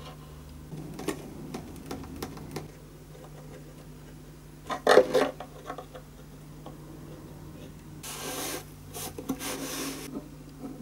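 A sponge rubbing over the wooden top of a violin along a freshly glued crack, wiping off excess hot hide glue, in a rough scrubbing patch near the end. Before it come small handling clicks on the instrument and a louder clatter about five seconds in.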